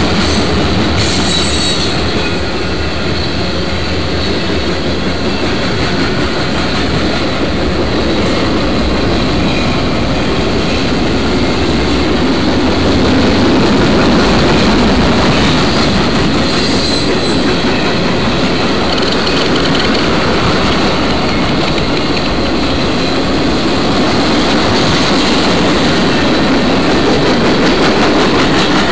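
Freight cars of a passing CSX freight train (covered hoppers, a gondola and boxcars) rolling by: a steady rumble and rattle of steel wheels on the rails, with brief high squeals about a second in and again around seventeen seconds in.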